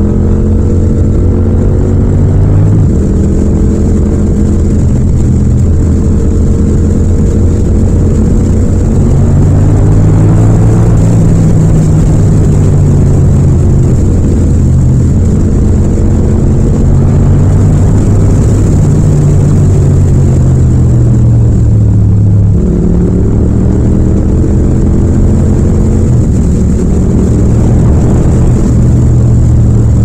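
Yamaha MT-07's parallel-twin engine, fitted with a Yoshimura exhaust, running under way with its note rising and falling as the bike speeds up. About twenty-two seconds in the pitch drops suddenly as it shifts up a gear, then climbs again.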